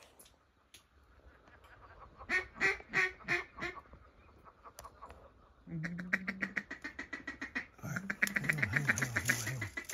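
Ducks quacking: a run of about six loud quacks a little after two seconds in, then fast, continuous chattering quacks from about six seconds in.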